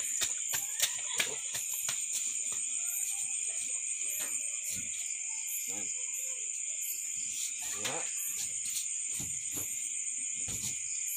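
Crickets chirring in a steady, continuous high-pitched chorus, with scattered soft knocks and shuffles of footsteps and clothing from a man moving through a martial-arts form, a few sharper knocks in the first second or so.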